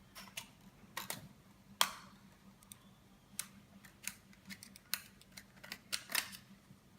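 Irregular small plastic clicks and taps from a BMW F10 dashboard display housing as its retaining tabs are prised up and the parts handled, with one sharper snap a little under two seconds in.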